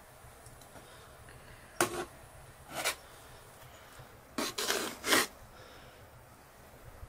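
A metal spoon scooping and scraping through cooked rice pilaf in a pot, in short scrapes about two and three seconds in, then a quick run of them around four and a half to five seconds.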